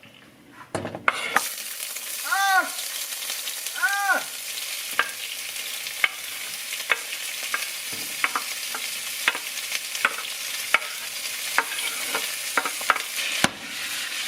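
Cut onions and bell peppers go into a hot pan about a second in and start to sizzle loudly. They keep frying steadily while a utensil stirs them, with frequent sharp taps against the pan and two short rising-and-falling squeaks early on.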